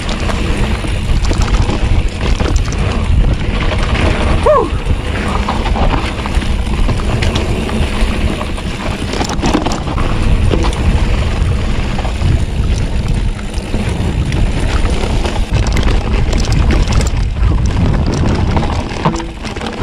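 Wind buffeting the helmet-camera microphone over the tyres of a Polygon Siskiu T8 mountain bike rolling fast on a dirt trail, with the bike's frequent clicks and rattles over the bumps. A short falling squeal sounds about four and a half seconds in.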